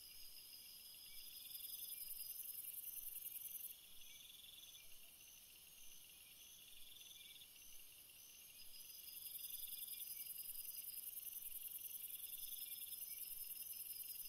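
Faint, high-pitched insect chirping, in steady repeating pulses like a cricket chorus.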